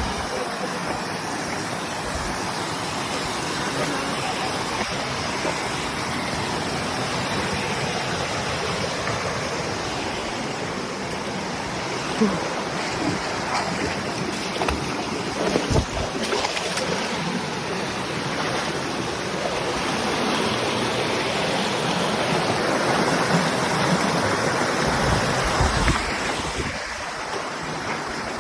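Steady rush of flowing water, with a few short low thumps.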